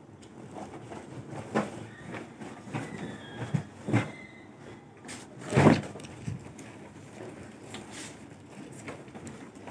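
Stiff net lining and heavy lehenga fabric rustling and crackling as it is handled and turned over, in short irregular bursts with one louder bump a little over halfway.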